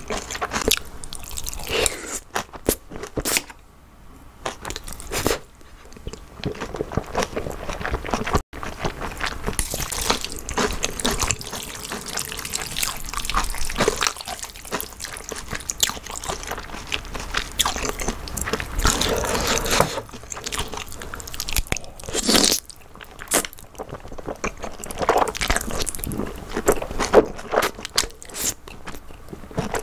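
Close-miked ASMR eating sounds: chewing mouthfuls of jjajangmyeon (black bean noodles) with crunchy bites, and strands of noodles slurped into the mouth.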